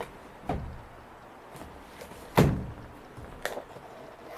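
A cardboard camcorder box being handled and turned over, giving a few short knocks and rubs, the loudest a thump about halfway through.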